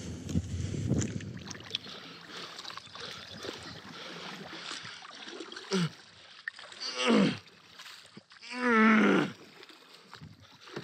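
Water sloshing and handling noise around a kayak, then three drawn-out vocal sounds that fall in pitch, about six, seven and nine seconds in. The last is the loudest and wavers in pitch.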